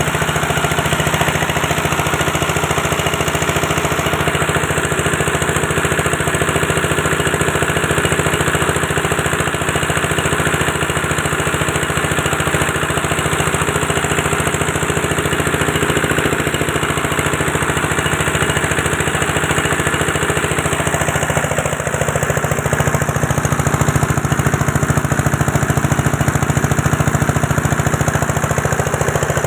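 An 8.5 hp diesel engine driving a multi-purpose chopper-grinder with screens, running steadily and loudly at working speed. Around two-thirds of the way through, the tone shifts slightly.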